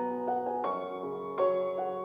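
Soft background piano music: slow held chords, with new notes struck every half second or so.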